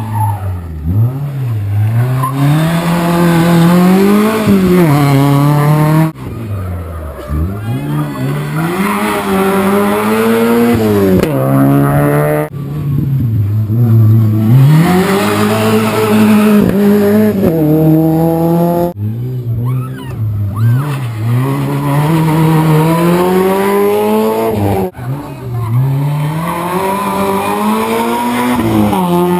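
Rally cars racing past one after another, in five short passes cut sharply together. In each pass the engine revs hard, its pitch climbing under acceleration and dropping at gear changes and braking as the car goes by.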